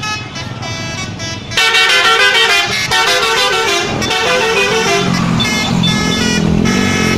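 Telolet horns on tour buses: multi-tone musical air horns playing quick changing notes in a melody, louder from about a second and a half in, with a lower-pitched horn joining about five seconds in.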